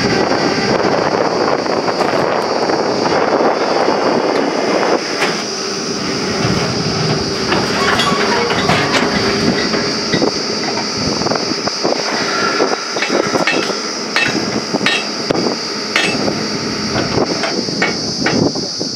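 Truck-mounted borewell drilling rig running with a steady loud noise and a constant high whine, joined from about five seconds in by repeated sharp metallic knocks and clanks at the drill head.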